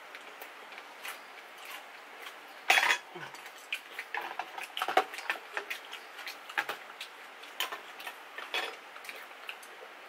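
Two people eating braised chicken with chopsticks and a metal spoon: utensils clicking against bowls and plastic containers, a loud clatter about three seconds in, then scattered clicks with chewing.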